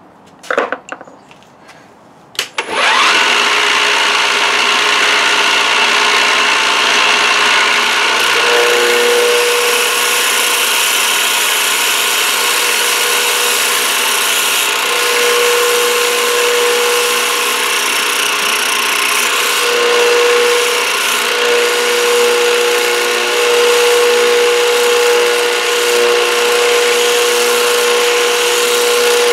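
Milling machine spinning up about two and a half seconds in, after a few brief clicks, then an end mill steadily cutting a copper bus bar, a loud even machining noise with a humming tone that comes and goes.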